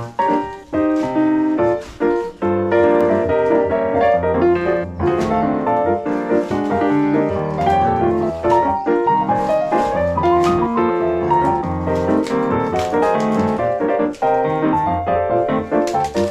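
Background music led by piano, a run of quick notes with a steady low part coming in about two and a half seconds in.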